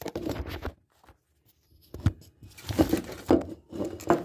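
Handling noise from a phone camera being moved and set down: hand and fingers rubbing and knocking against the microphone in bursts, with a short quiet pause of about a second before more scraping.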